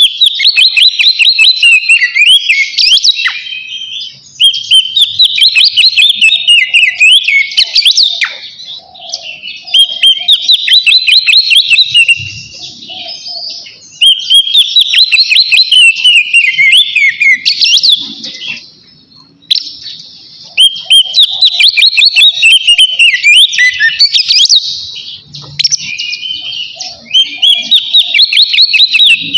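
Oriental magpie-robin (kacer) singing its loud full 'ngeplong' song, the territorial song that calls out rival males. It sings phrases of rapid whistled and warbled notes, each a few seconds long, with short breaks between.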